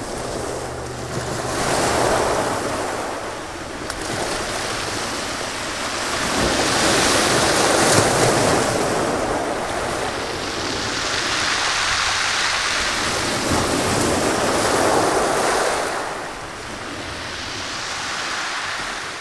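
Sea surf washing onto a beach, swelling and easing every few seconds.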